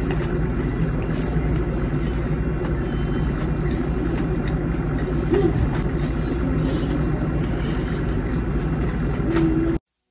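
Steady low rumbling noise, even in level throughout, that cuts off abruptly near the end.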